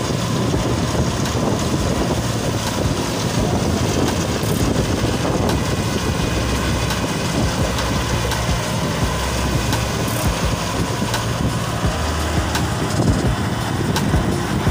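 Fiat 480 tractor's diesel engine and the wheat thresher it drives, running steadily together.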